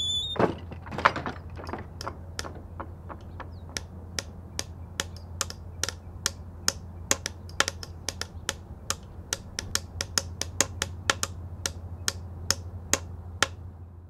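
A steady run of sharp taps, about two to three a second, over a constant low hum, beginning with a looser cluster of knocks and stopping abruptly near the end.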